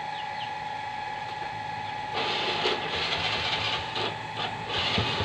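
Small motorcycle engine starting about two seconds in and running, with a loud broken hiss over its low hum.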